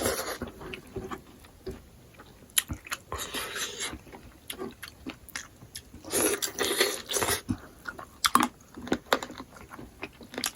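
Close-up eating sounds: chewing and biting smoked pork, with wet mouth smacks and sharp little clicks, loudest in patches about three and six seconds in.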